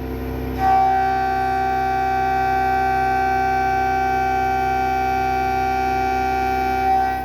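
A loud, steady buzzer-like alarm tone that starts abruptly about half a second in, holds one pitch for about six seconds and cuts off near the end, over a steady machine hum.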